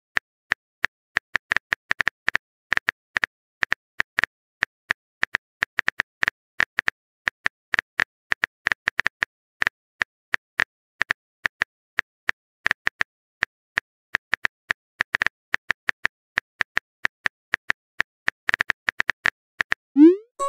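Simulated phone-keyboard typing clicks from a texting-story app: quick, irregular taps, about five a second, as a message is typed out. Near the end comes a rising pop, the message-sent sound.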